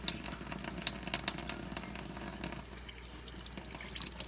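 Kitchen tap running into the sink, the stream splashing and broken by many small irregular clicks as raw chicken is handled under it.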